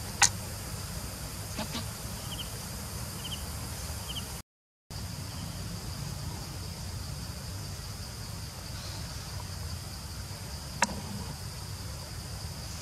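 Steady high-pitched drone of insects in forest undergrowth over a low rumble of outdoor noise, with three short chirps around two to four seconds in. A sharp click comes just after the start and another near the end, and the sound cuts out completely for about half a second around four and a half seconds in.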